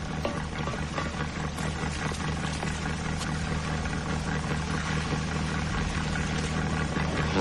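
Car ferry's engine running steadily: an even low drone with a noisy rumble over it, cutting off abruptly at the very end.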